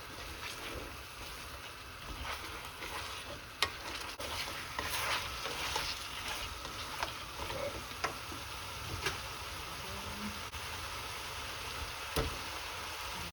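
Food sizzling in a hot pan while it is stirred, with a few sharp clicks scattered through.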